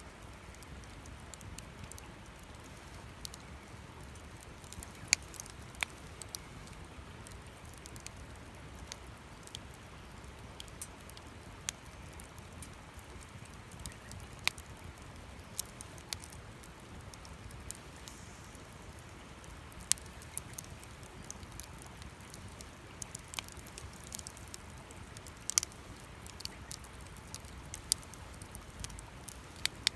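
Wood campfire crackling: sharp, irregular pops and snaps every second or so over a faint steady hiss.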